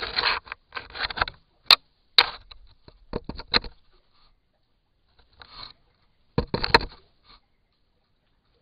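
Eagle handling the trail camera it has taken, its beak pecking and scraping at the casing: clusters of sharp knocks and rough scrapes picked up close by the camera's own microphone, with short silences between, busiest in the first few seconds and again a couple of seconds before the end.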